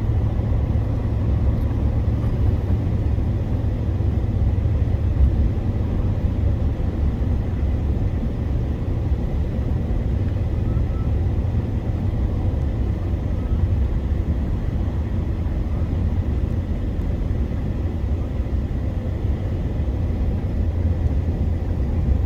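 Steady low road and engine rumble heard inside a truck's cab driving at highway speed.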